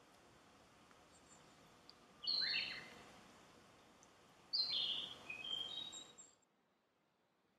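Narcissus flycatcher singing: two short phrases of clear whistled notes, the first about two seconds in and a longer one about four and a half seconds in. After that the sound drops away abruptly to near silence.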